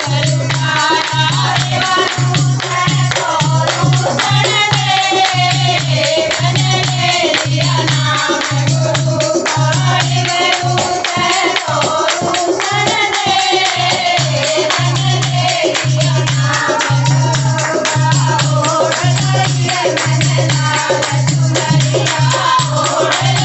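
Women singing a Haryanvi guru bhajan together, with hand-clapping and jingling rattle-like percussion over a steady low beat that pulses about once a second.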